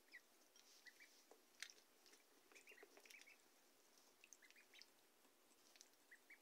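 Faint, scattered short peeps from week-old Pekin, Rouen and Swedish Black ducklings, with light clicks and taps as they peck and dabble at their food dish and waterer.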